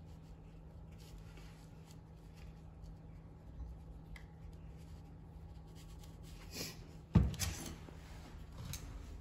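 Quiet handling of small brushcutter engine parts: soft rubbing and scraping, with one sharp knock about seven seconds in, over a faint steady hum.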